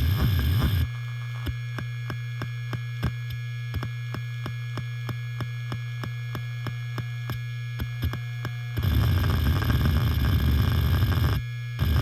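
Helium-filled hard disk drive working: a steady spindle hum with the heads seeking. Dense, rapid seek chatter stops under a second in and gives way to sharp ticks several times a second, then returns loud about nine seconds in, pausing briefly near the end.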